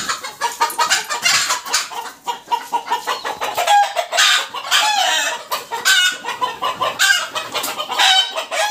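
A flock of domestic chickens, hens and roosters together, clucking and calling without a break in many short, overlapping calls.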